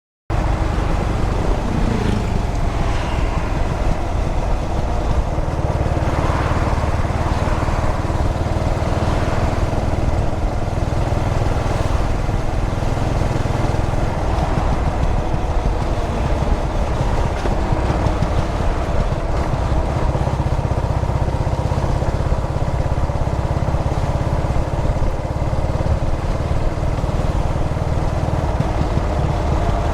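Yamaha SR400 single-cylinder motorcycle engine running while riding, steady and loud, with wind and road noise. It cuts in suddenly right at the start.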